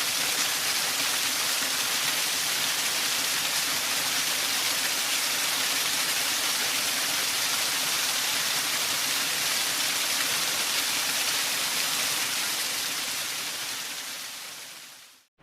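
Waterfall: a steady rush of falling water that fades out over the last few seconds.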